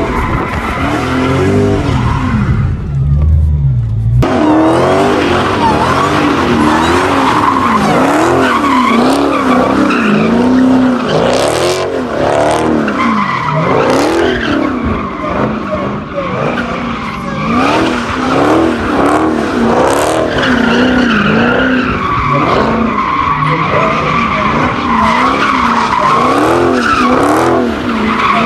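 Dodge Hellcat's supercharged V8 revving up and down in quick repeated sweeps, with tyres squealing, as in drifting or donuts. The sound changes abruptly about four seconds in.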